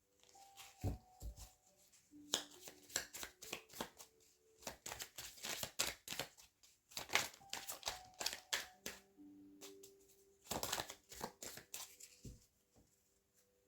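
A tarot deck being shuffled by hand: quick runs of papery card flicks in two spells, the longer one in the middle and a short one near the end.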